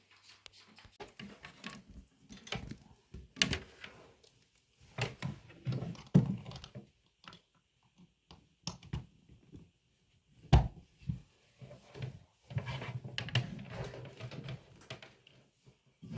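Scattered clicks, knocks and handling noises of objects being moved in a small room, with one sharp knock about ten and a half seconds in.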